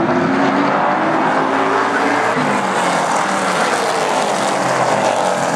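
Several Super Stock race cars running at speed around the oval, their engine notes overlapping and shifting in pitch as the pack goes by.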